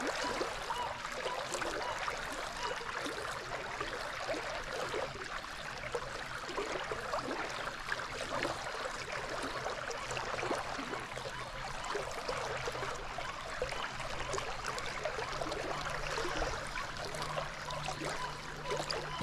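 River water running and burbling over a shallow, rocky riffle, a steady flickering rush.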